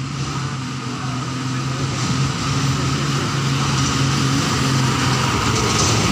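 Green Hino dump truck's diesel engine running steadily under power as the truck drives toward and past the listener, growing steadily louder.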